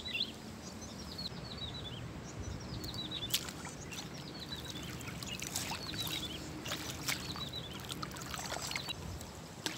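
Water splashing and dripping as hands work a fishing net and a mesh bag of fish in waist-deep river water, with short sharp splashes coming thicker from about halfway through. A bird calls all the while in short, repeated, falling chirps.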